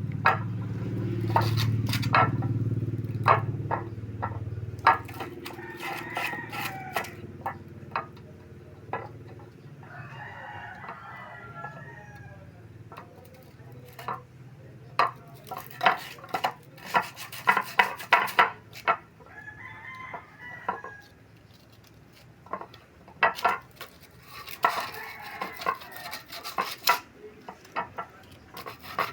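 Repeated sharp metallic clinks and knocks of hand tools at work, while a rooster crows about four times. A low hum fades away over the first several seconds.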